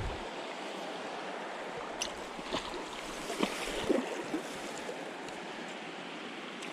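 Mountain stream rushing steadily, with a few short sharp knocks or splashes between about two and four seconds in.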